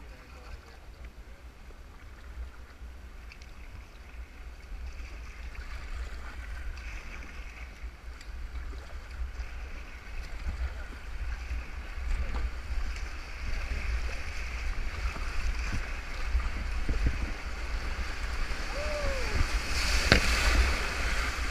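River rapids rushing, growing steadily louder as the inflatable kayak runs into the rapid, with wind rumbling on the microphone throughout. About twenty seconds in, whitewater crashes over the bow in a loud splash, the loudest moment.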